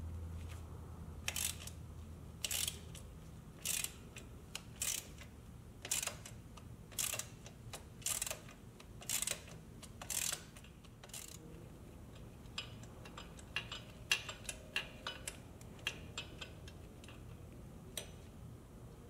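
Socket ratchet loosening the nut on a rear-shock lower mounting bolt: a burst of ratchet clicks on each return swing, about once a second, then quicker, lighter clicks through the second half as the nut comes free.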